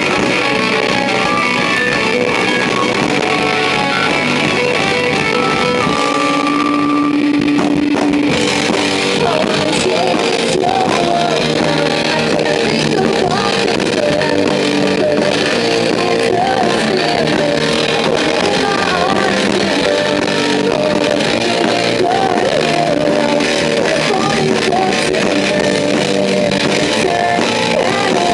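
Live rock band playing: electric guitar, drum kit and keyboard, loud and continuous. A singer's voice joins the band partway through, singing over the music.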